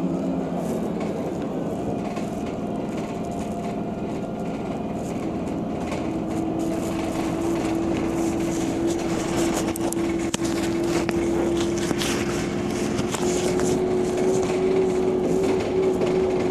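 Heuliez GX 137L city bus heard from inside while driving: steady engine and road noise, with a whine that comes in about six seconds in and climbs slightly in pitch as the bus gathers speed, over light rattling and creaking of the interior.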